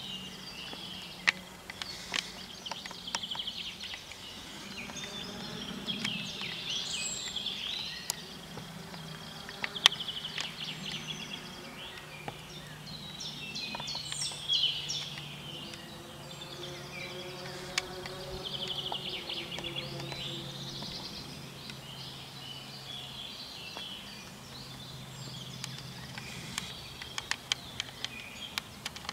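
Songbirds singing and chirping in woodland, over the low drone of a small plane passing overhead that slowly falls in pitch. A few sharp clicks stand out, the loudest about a second in and near ten seconds in.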